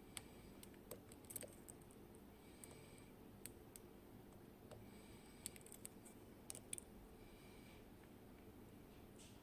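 Faint, scattered clicks and ticks of lock picks working the pins of a Kaba Gemini Plus high-security lock during picking, in small clusters about one, three and a half, and five to seven seconds in.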